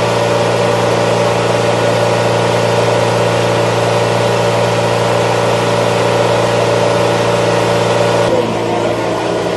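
An engine running steadily at idle, a constant hum with a steady pitch; the high hiss over it drops away about eight seconds in.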